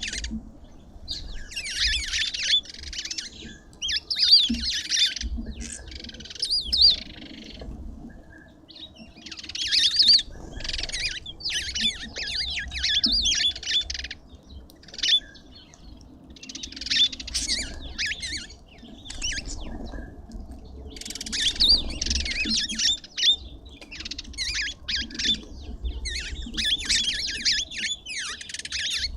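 Birds squawking and chirping in bouts of one to several seconds, with short pauses between them.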